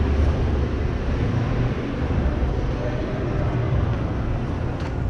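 Steady low rumble of a motor vehicle running, with an even hiss of road noise above it.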